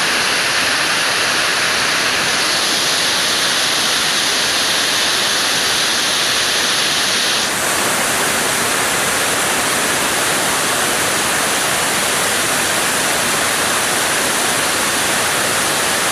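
Waterfall: a loud, steady rush of falling water, whose tone changes abruptly about halfway through.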